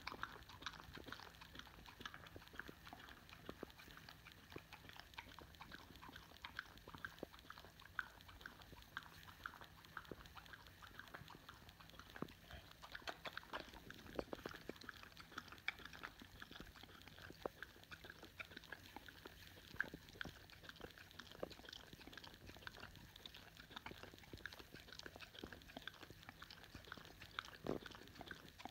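Boxer dog licking and smacking at peanut butter stuck in its mouth: a faint, irregular run of quick wet tongue clicks and lip smacks.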